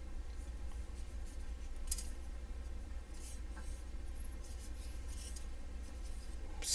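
Faint rustling and a few light clicks of plastic model-kit sprues being handled, over a steady low hum.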